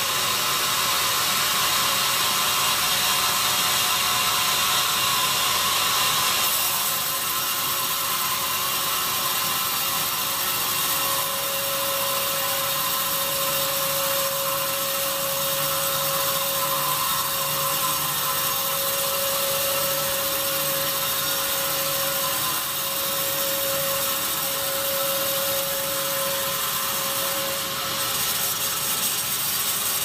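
Sawmill band saw blade cutting lengthwise through a teak log, a steady sawing noise with the mill machinery running. It is a little louder for the first several seconds, and a steady whine joins about ten seconds in, dropping away near the end.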